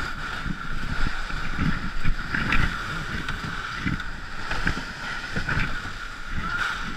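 Ice canoe pushed across snow-covered ice: the hull slides over the snow with a steady scraping hiss, under irregular thuds of the crew's boots kicking into the snow.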